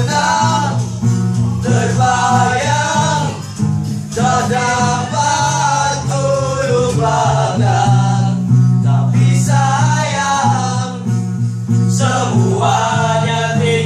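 Acoustic guitar played under several male voices singing a song together.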